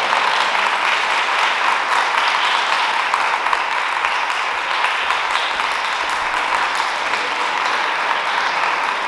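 Audience applauding, a dense, steady clapping that holds level throughout.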